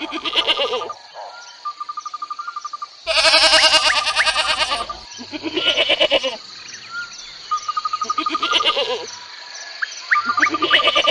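Repeated bleating from goats or sheep: five quavering calls, the longest and loudest about three to five seconds in. Between the calls a steady high buzz and short rapid chirping trills run underneath.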